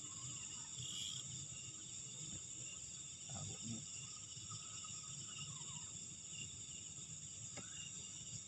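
Night insects chirring in a steady, high-pitched, unbroken chorus, over a faint low background hum.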